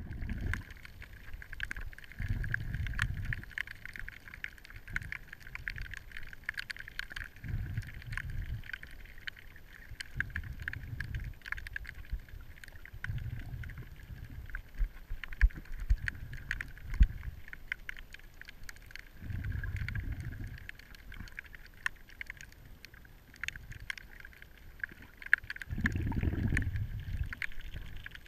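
Underwater ambience picked up by a submerged camera: low, rushing surges of moving water come every few seconds over a steady hiss, with scattered sharp clicks and crackles throughout.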